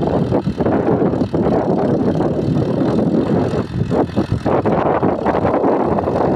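Fiat tractor's diesel engine running under load as it pulls a plough through the soil, mixed with wind buffeting the microphone.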